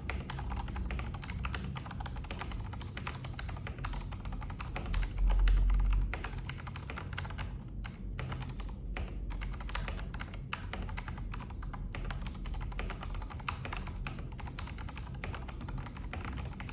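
Continuous fast typing on a plateless, fully foam-modded NCR-80 mechanical keyboard with Jwick Black linear switches: a dense, irregular run of keystrokes. About five seconds in there is a deep low thump lasting about a second.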